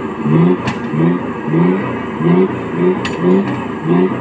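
A 4x4 off-road truck's engine revving in quick repeated pulses, each a short rise in pitch, about one and a half a second. Two sharp clicks come through, one early and one about three seconds in.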